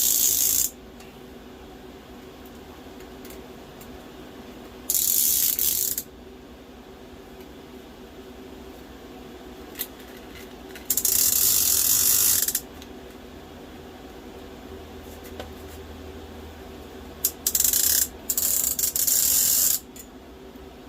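Rope ratchet light hangers clicking as their cords are pulled tight to take up slack, in about five separate bursts of up to a second and a half each.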